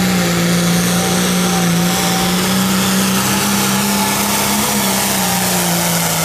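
Competition pulling vehicle's engine held at full throttle, a loud steady high-revving drone with heavy exhaust noise, cutting in abruptly at the start.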